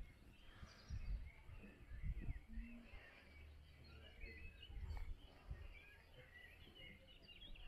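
Faint birdsong: many short chirps from several birds throughout, over a low, gusty rumble of wind on the microphone.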